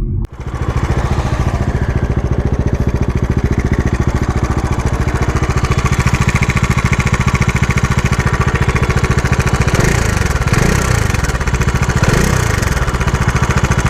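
Bajaj Dominar 400 BS6's 373 cc single-cylinder engine running steadily with an abnormal mechanical noise, its speed swelling briefly twice near the end. The engine is low on oil, and the owner is unsure whether that is the cause of the noise.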